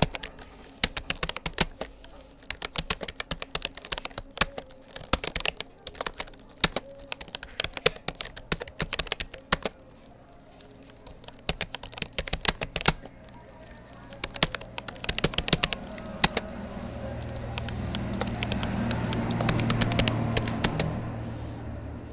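Typing on a Rapoo computer keyboard: quick bursts of key clicks with a short pause about halfway. In the second half a low hum swells up and fades away near the end.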